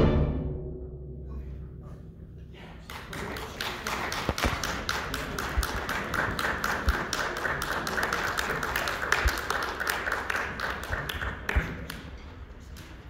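The concert band's final chord rings away in the hall's reverberation over about two seconds, then the audience applauds, a dense patter of clapping that thins out near the end.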